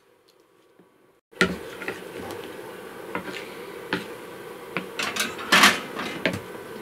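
Metal bundt cake pan knocking and scraping against the wire rack and open door of a small galley oven as it is pushed inside: a run of clicks and clanks, with one louder scrape about five and a half seconds in. The first second is near silence.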